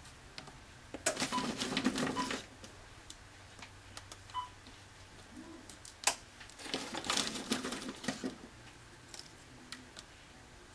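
Oreo cookies being broken and crumbled by hand, a crisp crackling in two bursts, about a second in and again around seven seconds, with a single sharp snap just before the second burst.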